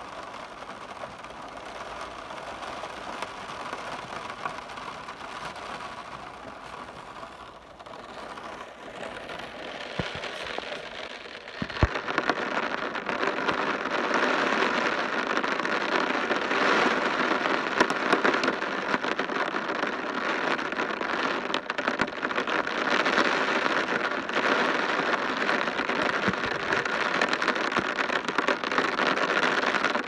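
Steady rain falling, growing heavier and louder about twelve seconds in, with a sharp tap just before the change.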